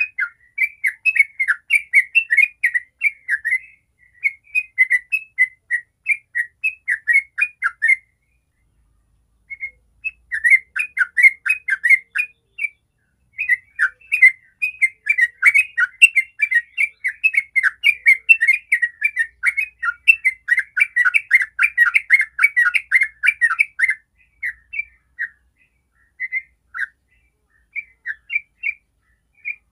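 Yellow-vented bulbul singing in quick runs of short chirping notes, about four a second. The song pauses briefly about eight seconds in, builds to a long dense run in the middle, and thins to scattered single notes near the end.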